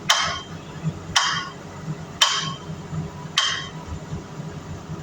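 Heavy hammer blows on steel, four evenly spaced strikes about a second apart, each ringing briefly, over a steady low engine hum.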